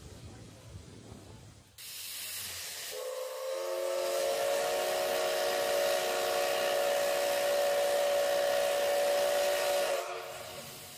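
Steam whistle of the Mogiana No. 761 steam locomotive blowing one long blast. A hiss of steam starts about two seconds in. The whistle tone comes in a second later, rises slightly in pitch, holds steady, and cuts off sharply about ten seconds in.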